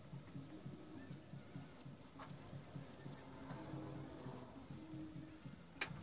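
Digital multimeter's continuity beeper sounding a high-pitched tone as the test probes touch the repaired conductive-paint keypad traces: one long beep of about a second, then a run of short, uneven beeps as the probe contact makes and breaks. The tone signals a closed circuit between the probe tips. A click near the end.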